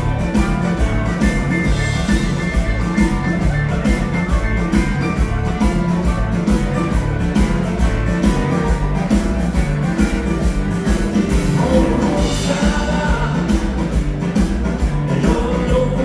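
Live dansband music: a dance band with drum kit, bass and electric guitars playing a dance tune with a steady beat.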